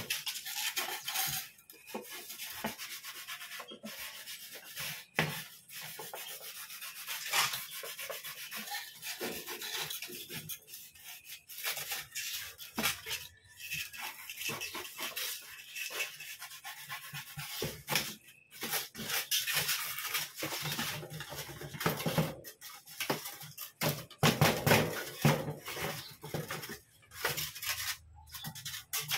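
Utility knife blade sawing through a sheet of styrofoam, a scratchy rubbing in short irregular strokes, louder in stretches near the end.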